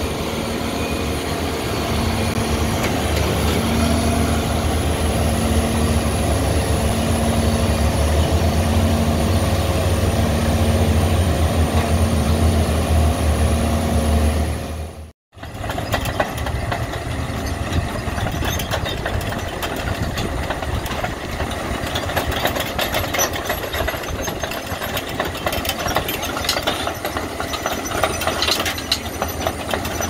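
Engine of a self-propelled squash harvester running close by, with a steady high whine above its hum. About halfway through the sound cuts out for a moment, then machinery runs on with a busy clatter of knocks and rattles.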